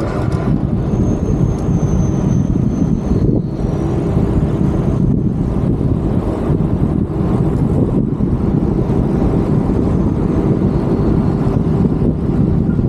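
Steady low rumble of city road traffic, with a faint thin high tone for a couple of seconds about a second in.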